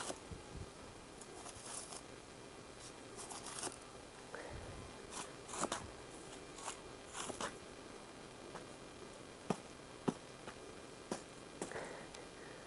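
Irregular small clicks, taps and rustles, as of things being handled, over a faint steady hiss. Two sharper clicks come close together past the middle.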